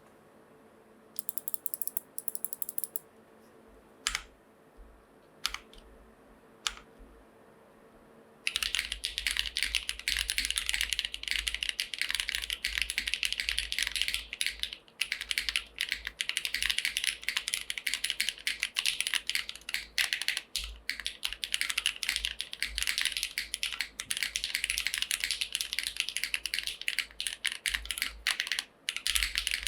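Typing on a Daji Ocho Cuatro TKL custom mechanical keyboard with a top-mount aluminium plate, retooled Cherry MX Black linear switches (lubed and filmed) and GMK keycaps. A few scattered single keystrokes come first, then fast continuous typing begins about eight seconds in.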